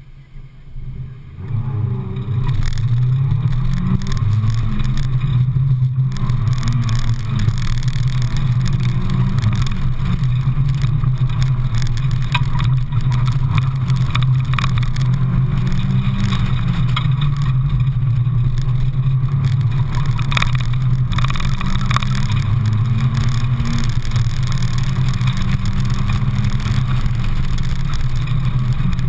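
Mazda Miata's four-cylinder engine driven hard on an autocross run. It launches about a second and a half in, and the revs then rise and fall repeatedly through gear changes and lifts between the cones. It is heard from inside the open cockpit with wind noise.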